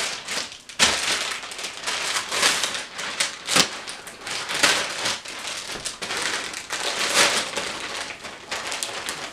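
Plastic mailer bag crinkling and rustling as it is handled and cut open, with several louder crackles scattered through.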